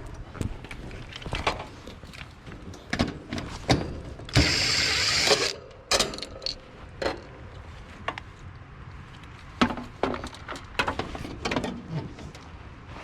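Irregular clicks, taps and rattles of hands and tools working at the condenser's capacitor and wiring while it is tested with a meter. A harsh hiss lasting about a second starts a little after four seconds in and is the loudest sound.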